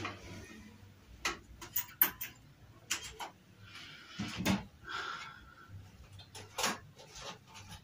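Metal cooking pots being handled on a stove: a scattering of sharp knocks and clinks as pots and lids are set down and moved.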